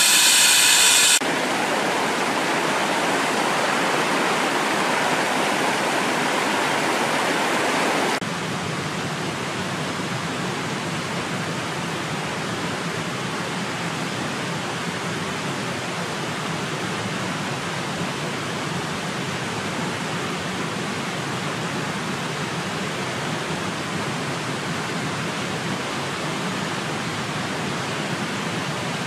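Steady rushing noise, like running water, that drops abruptly in level about a second in and again about eight seconds in. In the first second a high whine of several stacked tones, like a drone's propellers, cuts off.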